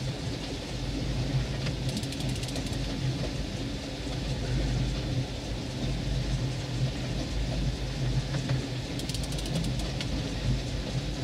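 Boat motor running steadily at low speed, with water and wind noise around it. Twice a short burst of rapid fine clicking cuts in, about two seconds in and again near the end.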